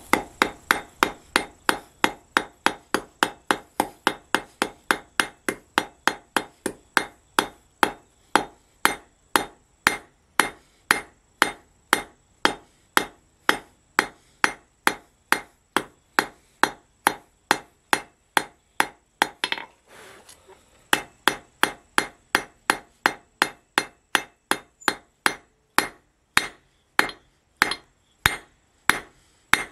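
Blacksmith's hand hammer striking a hot metal bar on an anvil in a steady rhythm, about two to three blows a second, each with a short ring. The blows pause briefly about two-thirds of the way through, then resume.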